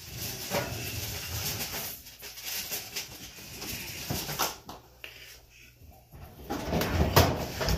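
Kitchen handling noise as a pan of prime rib is put into the oven: rustling and scattered knocks, with a heavy thump near the end.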